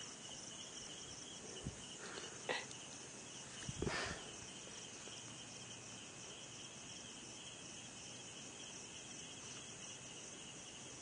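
Faint, steady, high-pitched background noise, with a few soft short knocks in the first four seconds.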